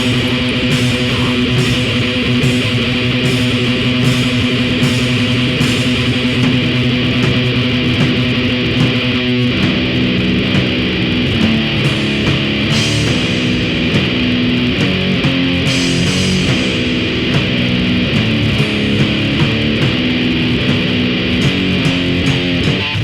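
Death grind / noise grind music built on loud electric guitar riffing. The riff changes about nine and a half seconds in.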